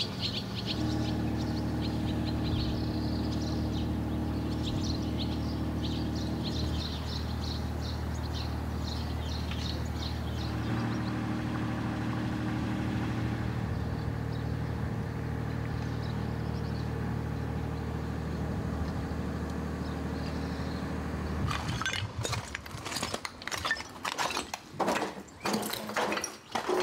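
An engine running steadily, with birds chirping over it for the first several seconds. About 22 seconds in the engine sound stops and a quick, irregular series of knocks and clatters takes over.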